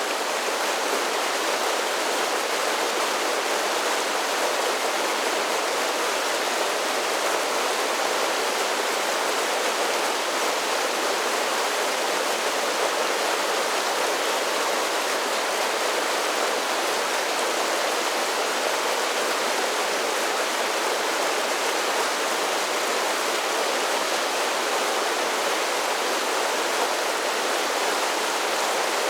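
A series of small mountain-creek waterfalls, water pouring and splashing over rocks in a steady, unbroken rush.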